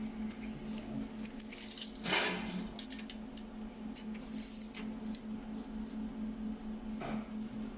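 Light metallic clinks and rattles from handling steel parts, with a louder clatter about two seconds in, over a steady electrical hum.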